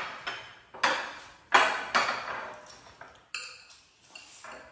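Dishes and eating utensils clinking against bowls and plates: a string of sharp clinks, each ringing briefly and fading, the loudest about a second and a half in.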